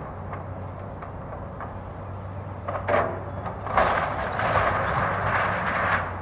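Tracked excavator's diesel engine running steadily while its bucket tears into a house, with a brief crash about halfway through and then a longer stretch of crunching and clattering as the structure breaks and debris falls.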